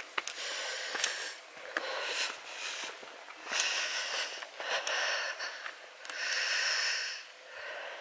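A walker's breathing close to the microphone: about five loud breaths, each up to a second long, with short pauses between them and a few light footfalls on the track.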